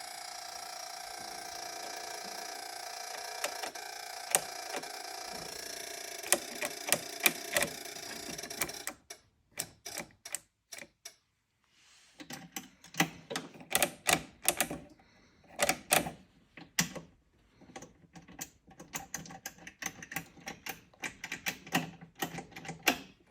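Kubota L-series compact tractor that won't start, making rapid, irregular clicking in the electrical and starting system. A steady hum with scattered clicks stops about nine seconds in, and runs of sharp clicks, several a second, follow with short pauses.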